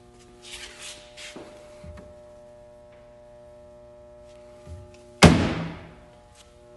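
The hinged side door of a GT999 race-car bed is swung shut by hand and lands with one loud thunk about five seconds in, after a few softer handling sounds near the start. Quiet background music plays throughout.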